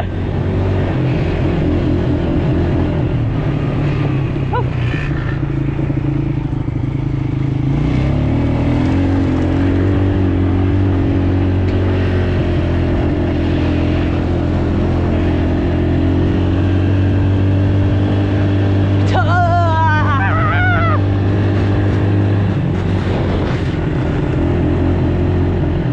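Small off-road motor vehicle engine running steadily while riding, its pitch shifting a little now and then. A brief wavering voice, like a shout, rises over it about three-quarters of the way through.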